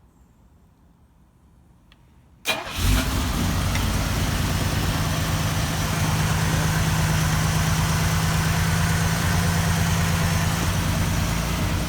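1969 Mercedes-Benz engine, just converted from points to a Pertronix electronic ignition, cold-starting about two and a half seconds in: it catches almost instantly and settles into a steady idle.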